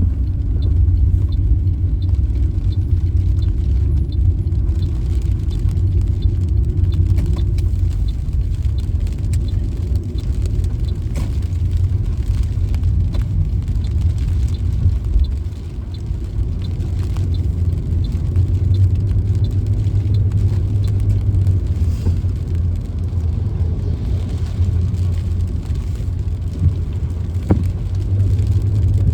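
Steady low rumble of road and engine noise inside a moving car's cabin, easing briefly about halfway through.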